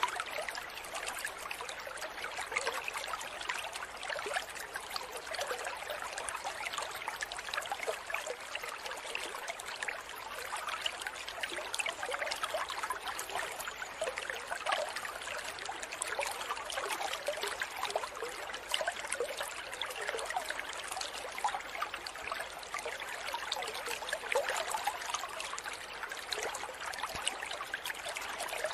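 Aquarium aeration bubbling: a column of air bubbles rising from an airline and breaking at the water surface, a steady trickling made of many tiny pops.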